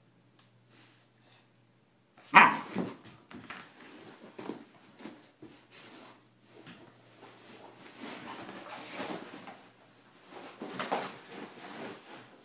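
Bernese mountain dog puppy playing rough with a nylon laptop bag: a sudden loud bark about two seconds in, then irregular short grumbles and whines mixed with the rustle and scuffle of the bag being thrashed and dragged.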